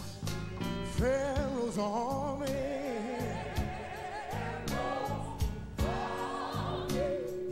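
Live gospel music: a lead voice sings long, bending notes with vibrato over a band with a steady drum beat.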